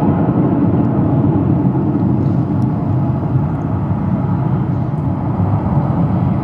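Airbus A340-300's four CFM56 turbofan engines, a steady deep rumble as the airliner rolls along the runway.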